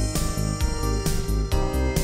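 Background music with a steady beat of bass and drums under held chords.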